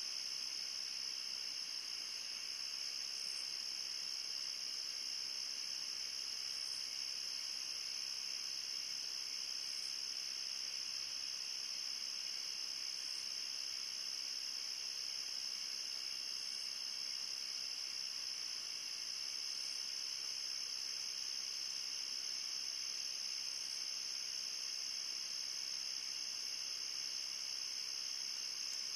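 Late-summer night insect chorus of crickets: a steady, unbroken high-pitched trilling, with a faint, even higher chirp about every three seconds.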